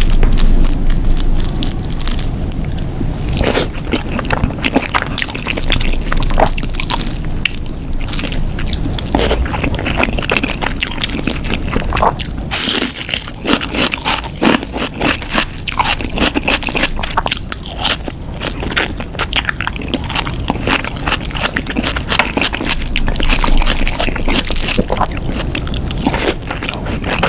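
Close-miked eating of chicken curry: chewing and biting with many quick, irregular wet mouth clicks and smacks.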